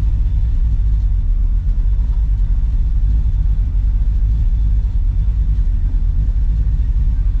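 Chevrolet C10 pickup driving at a steady pace, a loud, even low rumble of engine and road heard from inside the cab.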